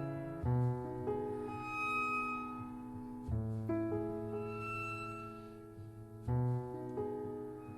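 Background music: slow, soft piano with sustained string notes, new chords coming in about every three seconds.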